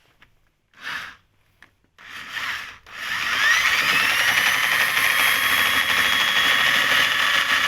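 Two short bursts of noise, then a power drill driving a homemade coil-winding rig spins up, its whine rising briefly about three seconds in, and runs steadily, winding wire onto a bobbin.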